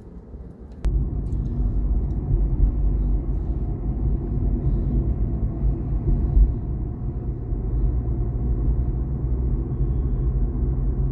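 Steady low road and engine rumble of a moving car, heard from inside its cabin, starting abruptly about a second in.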